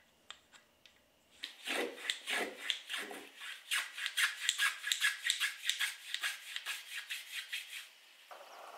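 Small wooden hand plane taking quick, short strokes along the edges of thin pine strips, about three strokes a second, each a dry rasping swish as it peels off curled shavings. A few light clicks of the tool against the wood come before the strokes begin.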